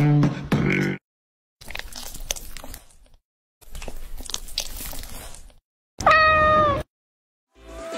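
Quick-cut clips: a voice in the first second, then two stretches of crackly squishing noises as a metal tool presses a pimple-popping nose toy, then a single short cat meow about six seconds in.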